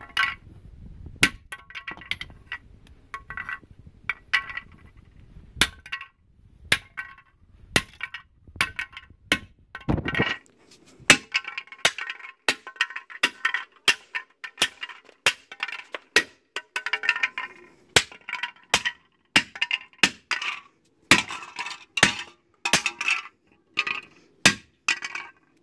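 Small sledgehammer striking a modified-polycarbonate 80% lower receiver on concrete, blow after blow at roughly one to two a second, each a sharp crack with a brief metallic ring. The polycarbonate receiver takes the repeated blows without shattering.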